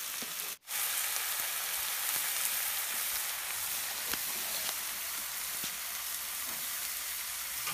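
Onion-and-spice masala sizzling steadily in hot oil in a steel kadai, as it fries with freshly added salt and turmeric. The sizzle cuts out for a moment about half a second in.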